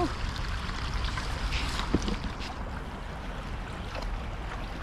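Steady rush of a shallow river flowing over rocks, with a low steady rumble underneath.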